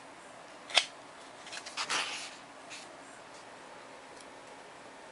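Pages of a paperback workbook being turned: a sharp tap just under a second in, then a paper rustle around two seconds, and a few faint ticks of handling.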